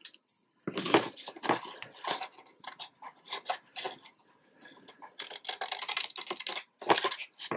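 A paper-covered post-bound album and its paper being handled and turned over on a cutting mat: rustling and sliding in several short bursts with quiet gaps between.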